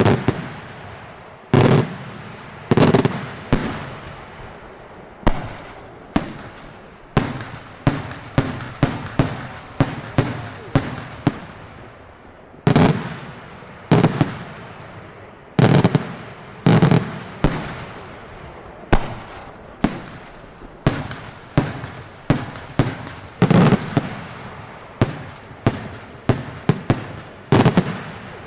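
Daytime fireworks display: a long run of loud bangs from bursting shells, each followed by an echoing tail. The bangs come a second or two apart at first, then increasingly in quick clusters of several at a time.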